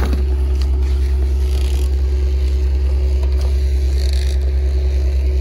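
Motor vehicle engine running with a steady low drone and a slight even pulse, with a few light rustles or scrapes over it.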